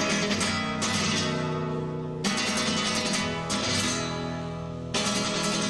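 Instrumental rumba catalana music led by strummed acoustic guitar, with no vocals.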